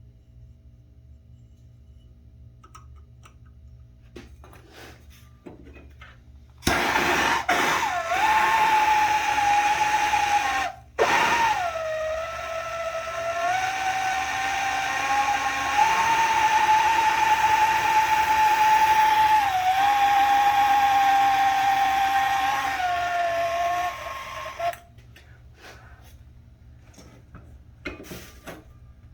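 Handheld gas soldering torch burning with a steady hiss and a held whistling tone while heating a fluxed copper pipe joint for lead-free solder. It starts suddenly, cuts out and restarts briefly, then burns steadily before shutting off.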